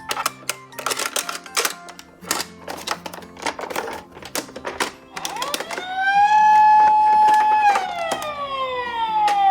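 A rapid, irregular run of small plastic clicks and knocks from handled toy cars, then a toy ambulance's electronic siren wailing: it rises about five seconds in, holds a steady pitch, then falls away near the end.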